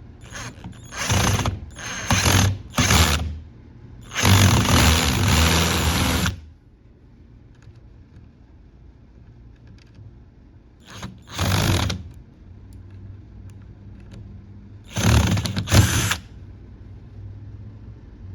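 GardenJoy 21V cordless drill-driver driving a screw in short bursts of spinning: three quick bursts, then one longer run of about two seconds, then after a pause two more pairs of short bursts.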